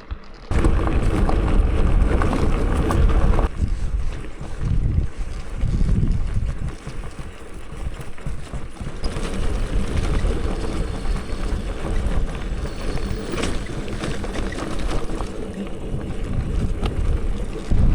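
Wind buffeting the microphone while a bicycle is ridden, an uneven low rumble that swells and dips.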